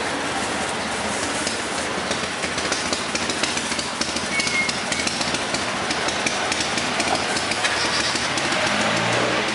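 An engine running steadily close by, with many fast clicks over it.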